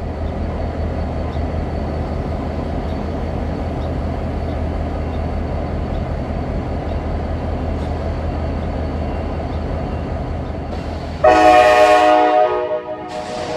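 Non-turbocharged EMD SD38AC diesel locomotive running with a steady low engine rumble, then sounding its multi-tone air horn once for about a second and a half near the end, a warning for the road crossing ahead.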